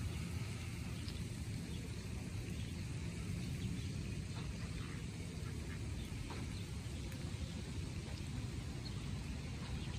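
Ducks quacking a few times on a pond over a steady low rumble.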